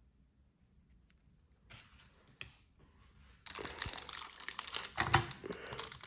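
Packaging being unwrapped by hand: a couple of soft handling taps, then from about halfway a dense run of crinkling and tearing.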